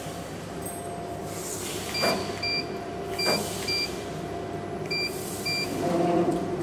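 Laser cutting machine running with a steady hum, broken by three pairs of short, high electronic beeps and two brief knocks in the middle. A louder motor whirr builds near the end.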